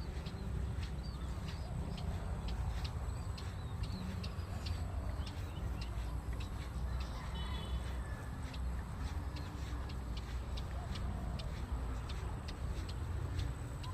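Birds chirping and calling outdoors, with many short high chirps and a brief clearer call about halfway through, over a steady low rumble.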